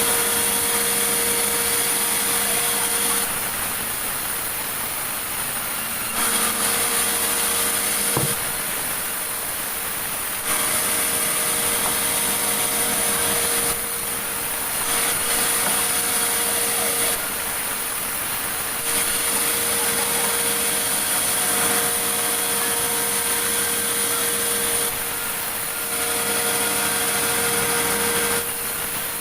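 Sawmill saw running and cutting meranti timber: a steady machine noise with a high whine that drops away and returns every few seconds.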